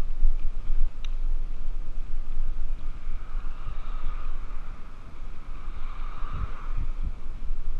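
Wind buffeting the microphone of a camera on a moving bicycle, a steady rumble with gusty thumps, mixed with road noise. A car passing on the road alongside swells the noise about six seconds in.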